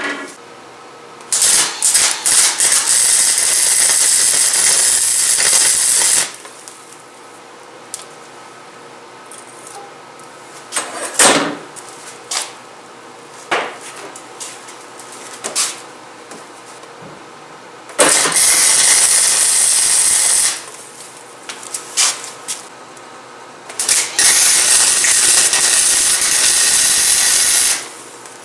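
Arc welding on a steel bracket clamped in a vise: three runs of steady hiss, the first about five seconds long, then after a long pause two shorter runs. Light knocks and taps sound between them.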